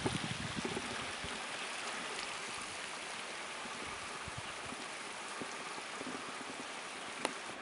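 A steady rushing hiss, with a few faint knocks in the first second and a half and one sharp click near the end.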